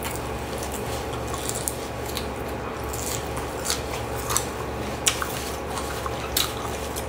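Close-up eating sounds: a person chewing a mouthful of raw leafy greens, with scattered short wet clicks and smacks over a steady low hum.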